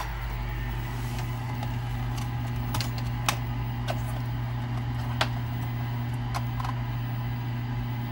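Steady low electrical hum from running bench electronics, with scattered sharp clicks and knocks as a power plug is pushed into a power strip and cords are handled.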